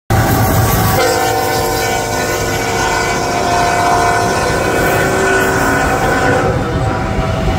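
Union Pacific freight locomotive's air horn sounding one long chord from about a second in, cutting off near the end, over the steady rumble of the passing intermodal train.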